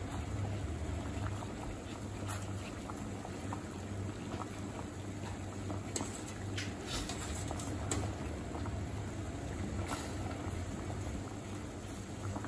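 Water at a rolling boil in a stainless steel pot, bubbling steadily. A few light clicks come from a wire-mesh skimmer touching the pot.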